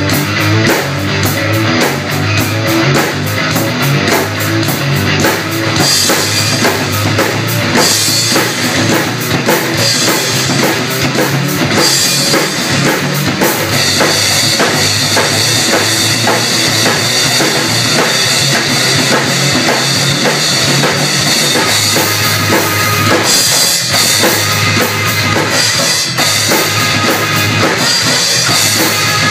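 A Ludwig drum kit played hard in a steady rock beat of snare, bass drum and constantly struck cymbals, over a rock backing track with bass and guitar.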